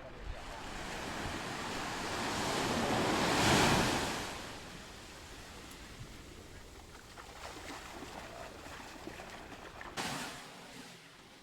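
Sea surf at the shoreline: a wave builds to a loud break about three and a half seconds in and washes back, then another sudden rush of water near the end.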